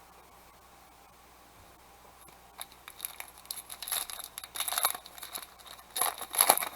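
Foil wrapper of a trading-card pack crinkling and tearing as it is opened by hand. It starts about two and a half seconds in as irregular crackles and builds into two denser bursts of rustling.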